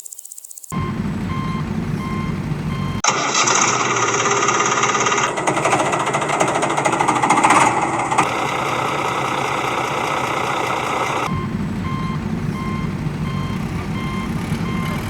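Heavy-vehicle engine running, in several pieces that change abruptly, with a reversing alarm beeping about once a second through the second half.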